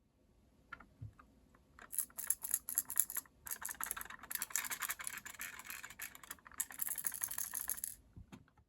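Something loose rattling inside a box light's housing as it is shaken: a few single clicks, then fast clicking rattles for about six seconds with two short breaks.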